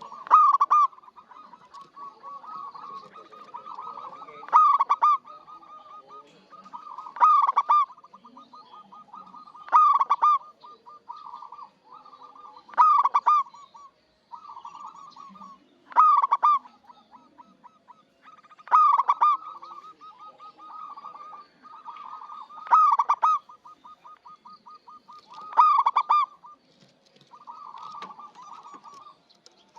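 A zebra dove (perkutut) cooing in its rhythmic song. Loud cooing phrases come about every three seconds, with soft, quick repeated notes between them.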